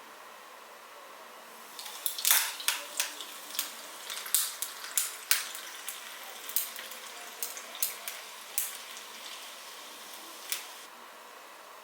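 Food sizzling in a hot pan, a steady hiss with irregular sharp crackles and pops, most frequent in the first few seconds; it cuts off sharply near the end.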